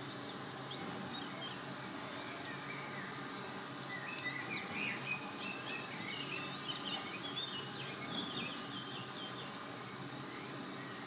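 Small birds chirping and trilling in a busy jumble of short, high calls, thickest from about four to nine seconds in, over steady outdoor background noise. A single sharp click sounds about two seconds in.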